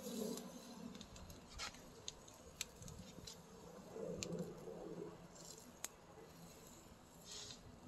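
Faint scattered clicks and ticks as raw, rub-coated chicken pieces are handled and set down on a charcoal grill's metal grate.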